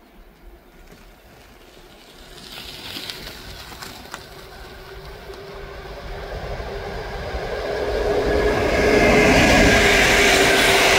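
EP07 electric locomotive hauling an Intercity passenger train, approaching and passing close by. Wheel and rail noise grows steadily louder over a steady hum and is loudest near the end as the coaches roll past.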